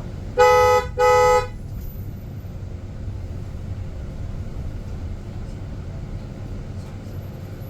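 Two short toots of a vehicle horn about half a second apart, then a steady low rumble of street traffic.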